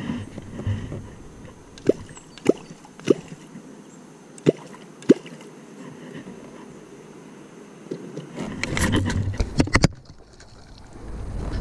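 Fishing gear handled in a small boat: five sharp knocks spaced about half a second to a second apart. About eight seconds in, a burst of rustling and rapid clicks as a spinning rod is swung out.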